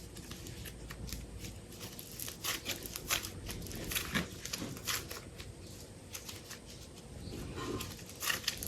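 Hands handling super light clay and its packs: a run of small clicks, crackles and rustles, busier a few seconds in and again near the end.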